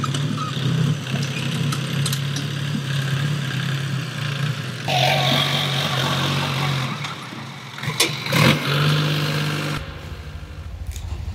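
Sonalika farm tractor's diesel engine running, a steady low drone that changes abruptly about five seconds in and again near the end. Two sharp knocks come a little past halfway.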